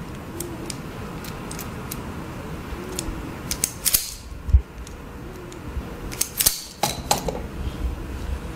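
Sharp mechanical clicks and snaps of a hand-held wire stripper being squeezed on a thin wire, coming irregularly, with a close run of clicks about six seconds in.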